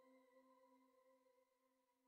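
Near silence: the faint tail of a held background-music note fading away to nothing.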